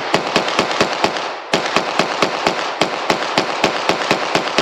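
IWI Uzi Pro 9mm pistol fired rapidly in semi-automatic, about seven shots a second, in two strings with a short pause about a second in.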